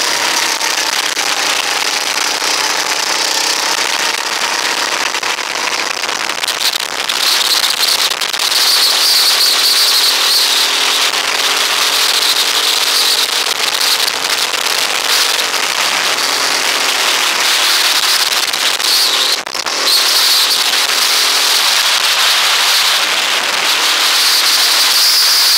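Rental go-kart's small engine running at racing speed, its pitch rising and falling with the throttle through the corners, under a loud rushing, crackling wind noise over the microphone. The sound dips briefly about three-quarters of the way through.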